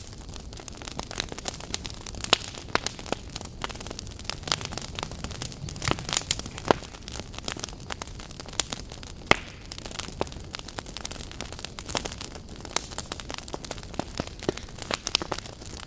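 Firewood burning briskly in a traditional Korean agungi firebox, with sharp, irregular crackles and pops over a steady low rush of flame.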